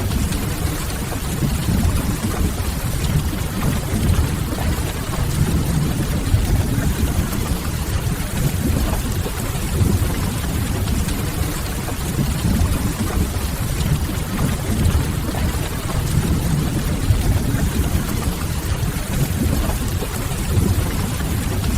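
Steady rain ambience: an even wash of rainfall over a deep, constant low rumble.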